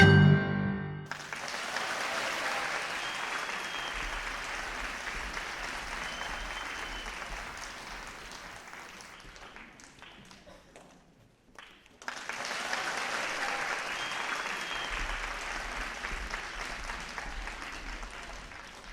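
Audience applause, with the ensemble's last mallet-percussion notes dying away in the first second. The clapping fades out about ten seconds in, then comes back abruptly at full strength a couple of seconds later.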